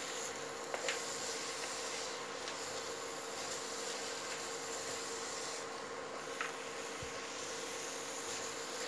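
Wooden spatula stirring and scraping thick grated-carrot halwa as it roasts in a pan, with a faint steady sizzle and a steady hum underneath. A couple of light taps of the spatula on the pan, about a second in and again later.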